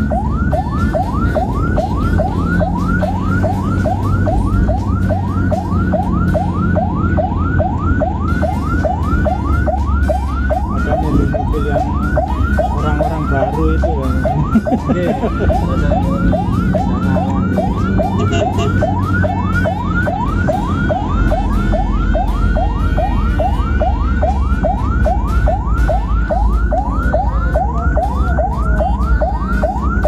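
Ambulance siren sounding a fast yelp, a rising sweep repeating about three times a second, heard from inside the ambulance's cab over the engine and road noise.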